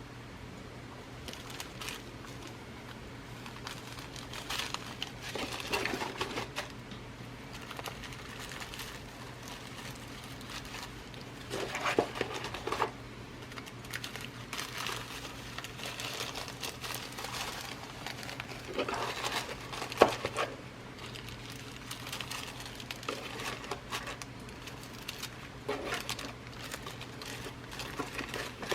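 Glass seed beads and their packaging handled while being sorted through: irregular rustling and crinkling with small clicks, and one sharp click about twenty seconds in.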